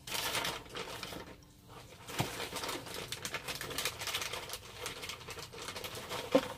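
Rustling and small clicks of packaging being handled and rummaged through in a cardboard box, with a short lull about a second and a half in and a light knock just after.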